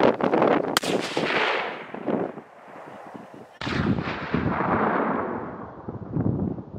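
12-gauge shotgun firing a 1-ounce slug: one sharp shot about three-quarters of a second in, then a long rolling echo that fades. After an abrupt cut a few seconds in, a second loud booming rumble starts suddenly and dies away slowly.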